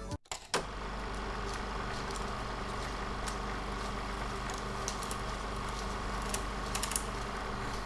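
Steady background hum with scattered light clicks and taps, several of them close together near the end.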